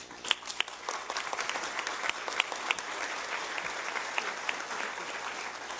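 Audience applauding: many hands clapping in a dense patter that starts just after the beginning and eases off slightly toward the end.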